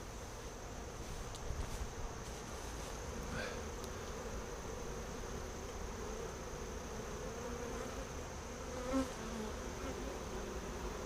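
Honeybees buzzing around a hive box: a steady hum whose pitch wavers as bees fly about. One bee passes close and briefly louder about nine seconds in.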